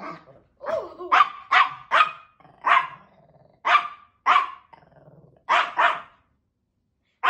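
A dog barking in short, sharp barks, about nine of them, with low growling in between, then a pause near the end.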